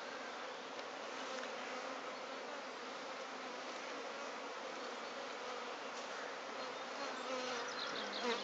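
Many honeybees buzzing steadily around an opened beehive during a frame-by-frame inspection.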